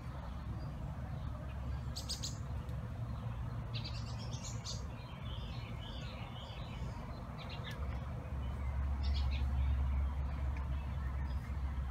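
Birds chirping in short, scattered bursts over a low steady hum that grows louder about eight seconds in.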